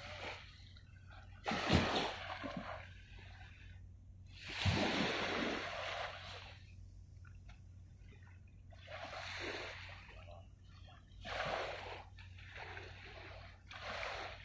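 Small waves washing onto the shore, about five surges a few seconds apart, each starting sharply and fading away.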